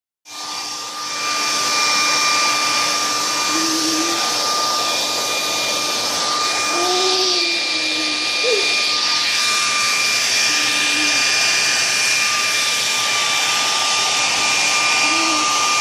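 Steady rushing air with a constant high-pitched whine from a small electric blower motor. It starts at the very beginning and reaches full level within the first second or two.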